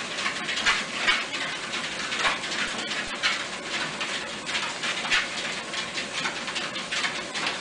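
Three dachshunds trotting on a running treadmill belt: a quick, irregular patter of soft noisy scuffs, two or three a second.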